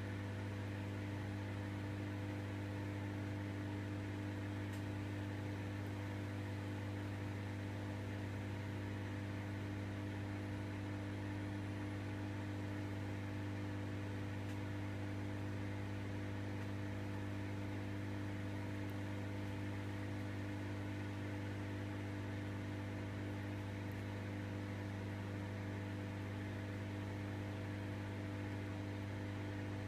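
Steady electrical hum: a low drone with a few fainter higher tones above it, unchanging throughout.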